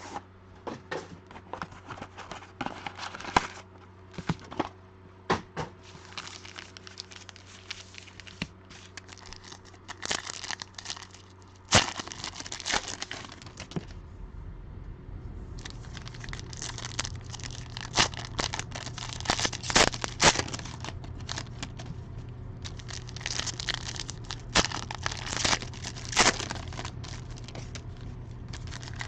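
Plastic wrapping and card-pack wrappers of a football-card hobby box crinkling and tearing as the box is unwrapped and the packs are ripped open, with irregular sharp crackles and snaps. A low hum gets louder about halfway through.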